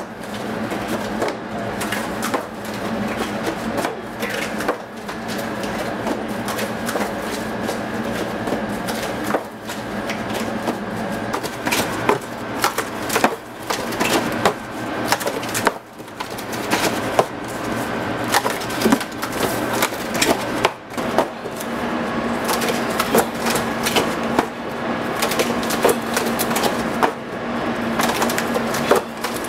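Corrugated cardboard pizza boxes being folded at speed: a rapid, continuous clatter of flaps slapping, creasing and snapping into place as each box is folded and thrown onto the stack.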